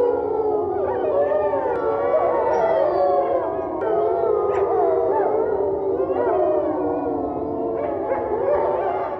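A pack of wolves howling in chorus, many voices overlapping in long rising and falling howls, beginning to fade near the end.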